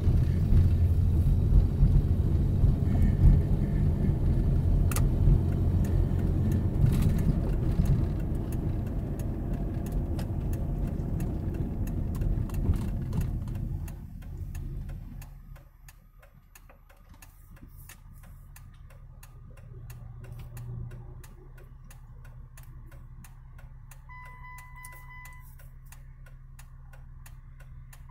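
Inside a car: road and engine rumble while driving, which drops off about halfway through as the car comes to a stop. Then the engine idles quietly while the turn-signal indicator ticks steadily, several clicks a second, with a brief steady beep tone near the end.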